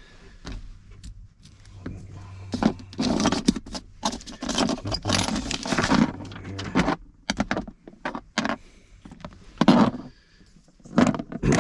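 A key ring jangling and small metal parts clinking in irregular bursts as they are handled.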